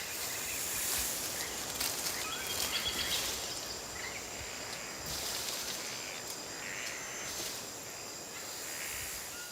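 Rainforest ambience: a steady high insect drone with a few faint, scattered bird chirps.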